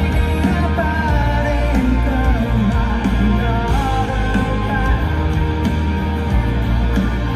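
Live rock band playing loudly, with a lead vocal sung over heavy bass and drums.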